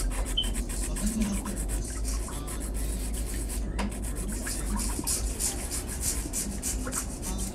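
Hand nail file rasping back and forth across an acrylic toenail in many quick, repeated strokes, shaping the tip.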